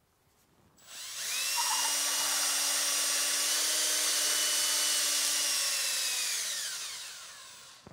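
Cordless drill spinning a reverse pilot bit through the bore of a cork rod grip, reaming it out to 3/8 inch. The drill starts up about a second in with a rising whine, runs steady with a hiss over it, then winds down near the end.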